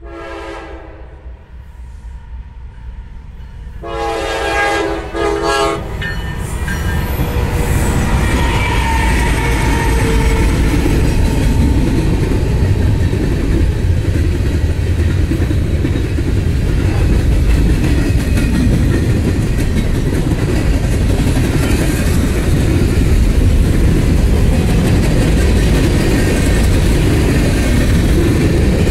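Air horn of a diesel freight locomotive sounding for a grade crossing: a short blast, then a longer one about four seconds in. The locomotives and then a long string of freight cars pass close by, a steady loud rumble of wheels on the rails that builds and holds.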